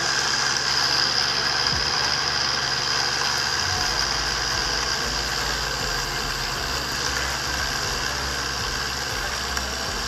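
Electric blender motor running steadily with a high whine, grinding peanuts into a crumbly peanut meal for peanut butter. A deeper low rumble joins about four seconds in.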